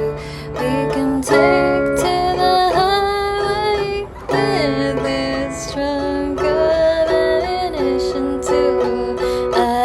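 Acoustic guitar played in a steady accompaniment, with a voice singing held, gliding notes over it.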